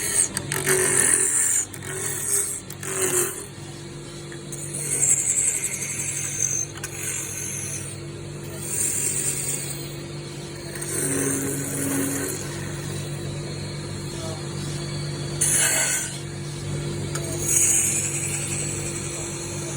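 Wood lathe running with a steady motor hum while a chisel cuts the turning wood of a chess piece in repeated hissing, scraping bursts of a second or two.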